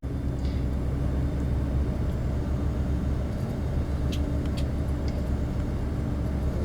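Steady engine and road drone of a moving tour coach, heard from inside, with a low even hum and a few faint ticks.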